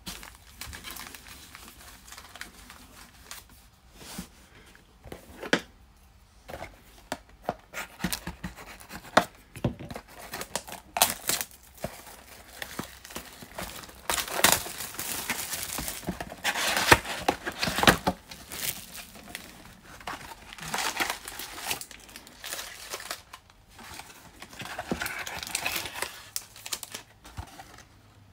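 Shiny plastic wrappers of Panini Mosaic basketball card packs being torn open and crinkled by hand: irregular crackling rips and rustles with sharp clicks, loudest around the middle.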